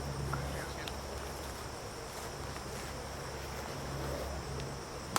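Steady high insect chorus over a low steady hum of outdoor background noise, with one sharp knock at the very end.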